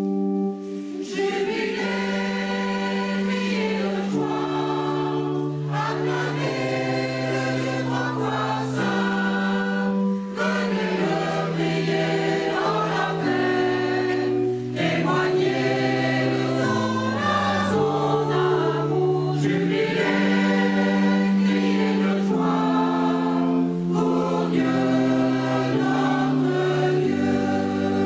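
Mixed choir of men's and women's voices singing a slow hymn in harmony, with held chords that change every second or two, accompanied by an electronic keyboard playing organ-like sustained notes.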